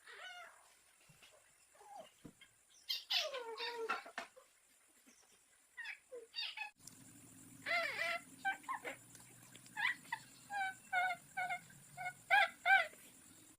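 Short pitched calls of domestic animals, one falling in pitch about three seconds in, then a run of quick repeated short calls in the second half over a low steady background hum.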